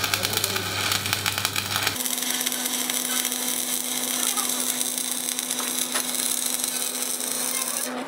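Stick (shielded metal arc) welder's arc crackling and sizzling steadily as a bead is run on a steel bucket link. A low electrical hum underneath shifts to a higher pitch about two seconds in.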